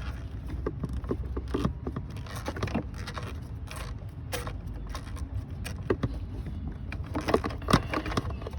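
Hand tools clicking and clinking against metal in short, irregular taps and scrapes as the bolts of a new thermostat housing are tightened down.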